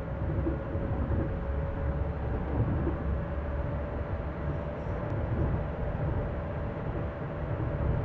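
ICE high-speed train leaving the station, its carriages rolling past with a steady low rumble and a constant hum. A faint click comes about five seconds in.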